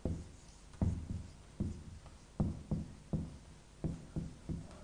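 Marker pen writing on a whiteboard: a run of short, irregular taps and strokes, about two a second, as letters are drawn on the board.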